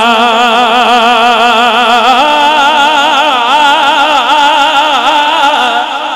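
A man's voice reciting a naat unaccompanied, holding one long melismatic note with strong vibrato. The pitch steps up about two seconds in, and the note thins out near the end.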